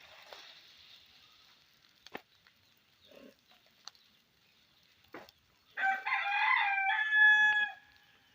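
A rooster crowing once, a call of about two seconds that starts past the middle and ends on a held note. A few faint clicks come before it.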